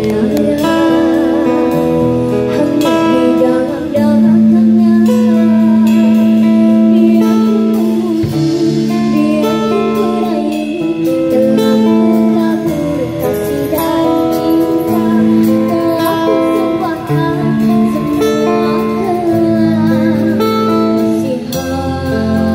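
A young girl singing into a microphone, holding long notes with vibrato, accompanied by a man strumming an acoustic guitar.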